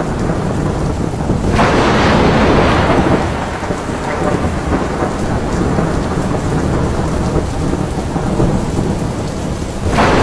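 Loud storm noise: heavy rain over a deep continuous rumble, swelling louder about two seconds in.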